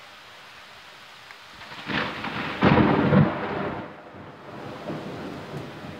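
Steady rain, then about two seconds in a loud clap of thunder that peaks a moment later and rolls off into a fading rumble over the next couple of seconds.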